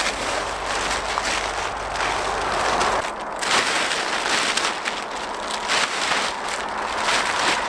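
Thin, cheap polyethylene tarp crinkling and rustling steadily as it is shaken out and thrown over a pole frame.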